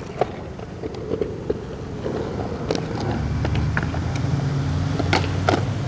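Skateboard rolling on concrete, with several sharp clacks of the board against the ground and a low rumble that grows louder about halfway through.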